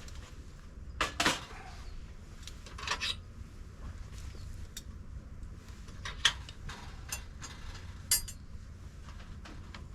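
Metal camp gear being handled: a few scattered clinks and knocks, about five spread over several seconds, like cookware or utensils set down and moved about.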